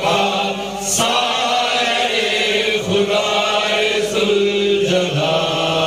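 A group of men singing together in unison, one voice into a handheld microphone, in long held notes.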